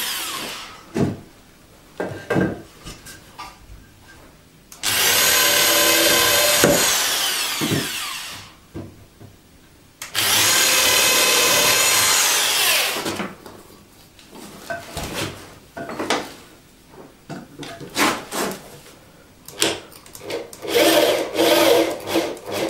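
Electric drill boring into wooden floorboards: two runs of about three to four seconds each, the motor's pitch falling as each run stops. Short knocks and scraping of wood on wood follow as boards are handled, more of them near the end.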